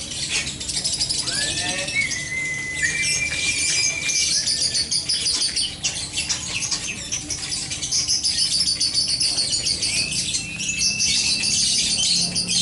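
Many songbirds chirping and chattering at once, a dense high rapid twitter that never lets up, with a few short whistled notes breaking through.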